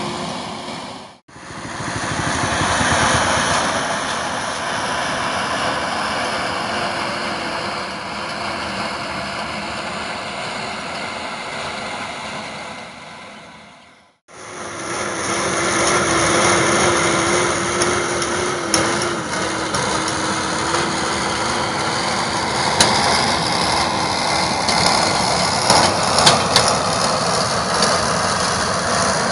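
Diesel engine of a Liaz ŠT 180 forestry skidder running steadily, cut off suddenly about a second in and again about fourteen seconds in. In the last part a steady whine rides on the engine, with a few sharp clicks near the end.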